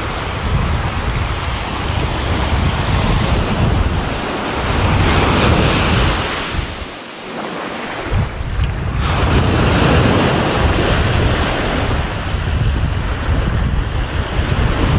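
Small waves washing onto a sandy beach, with wind buffeting the microphone. The wind rumble drops away briefly about seven seconds in, then picks up again.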